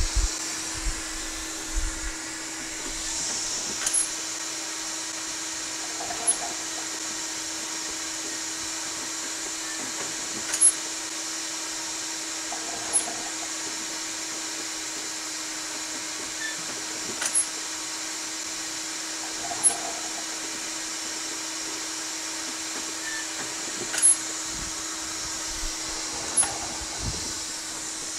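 Homemade pneumatic breathing-assist machine running: a steady hum and hiss of air, with a pair of clicks about two seconds apart repeating roughly every seven seconds as it cycles.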